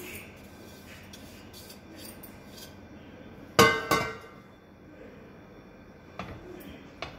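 Metal spatula working a sticky sesame, peanut and jaggery mixture in a stainless steel pan, with two sharp ringing metallic clinks about half a second apart a little past halfway, metal striking the pan.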